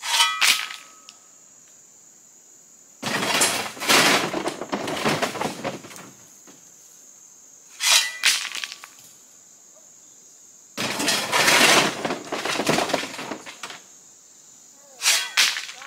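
Shovel working a load of crushed white rock off a pickup bed: short ringing scrapes as the blade digs into the stone, alternating with two longer rattling clatters of loose rock sliding and pouring, each lasting about three seconds.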